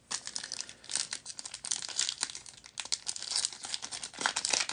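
A foil trading card pack wrapper being torn open and crinkled by hand: a dense, irregular crackle that gets louder near the end.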